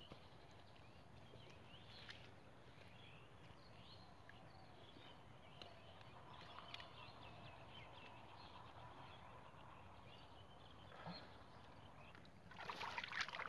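Near silence: faint rural outdoor ambience with scattered small bird chirps. Near the end comes a short burst of splashing and sloshing as hands dig in the muddy water at the eel hole.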